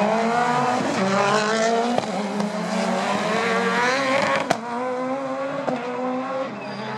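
Rally car accelerating hard through the gears: the engine climbs in pitch, then drops at each upshift about two and a half seconds apart, with a sharp crack at the shifts. After the second shift the sound fades slightly as the car pulls away.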